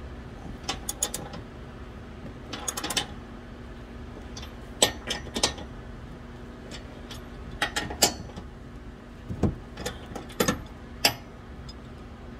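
Metal clinks and taps of steel bolts and washers being handled and started by hand into the threaded holes of a bolt-on hitch receiver's mounting points. The clinks come at uneven spacing, some in quick little clusters.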